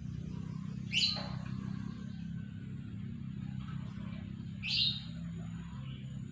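A caged lovebird gives two short, high-pitched calls about four seconds apart, over a steady low hum.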